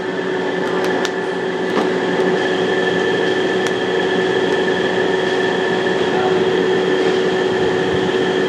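Steady roar of a commercial wok station, its high-output gas burner and extractor running, with a steady hum through it and a few sharp metal clicks, the loudest about a second in.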